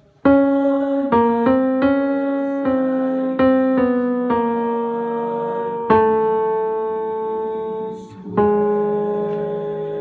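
A melody played one note at a time on a piano-toned keyboard, about ten notes in a steady line, with the last few held for a second or more as they fade.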